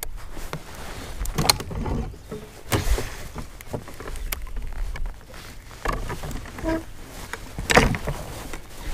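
Irregular knocks, clunks and rattles of gear being handled on a bass boat's deck around the bow-mounted trolling motor, with the loudest clunks about a second and a half in and again near the end. A brief squeak comes a little before the final clunk, over a low rumble of wind on the microphone.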